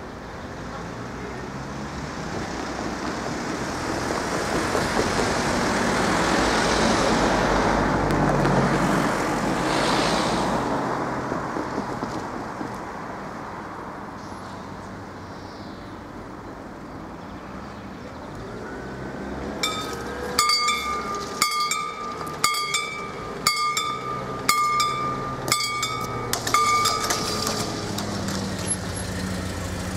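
A road vehicle passes, its tyre and engine noise swelling and fading in the first half. About two-thirds in, the level crossing's warning bell strikes about once a second, eight times, each strike ringing with a clear tone, while the barriers lower. Near the end a low steady engine hum remains.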